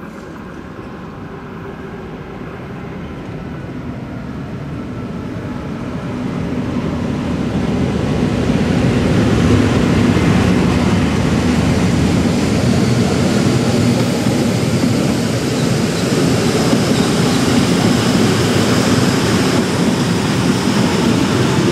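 Rhaetian Railway train, an electric locomotive hauling red passenger coaches, approaching and running past close by. The rumble of wheels on rails grows steadily louder over the first nine seconds or so as the locomotive draws near, then holds level as the coaches roll past.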